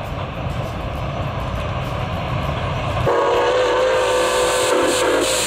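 A low rumble, then about three seconds in the steam whistle of Milwaukee Road 4-8-4 Northern locomotive No. 261 blows a steady chord of several notes for about two seconds.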